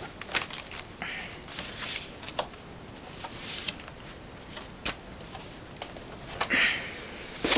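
Cardboard model box handled by hand: card scraping and sliding against card in short swishes, with scattered taps and clicks, as a tight-fitting box is worked open. The loudest swish comes about six and a half seconds in.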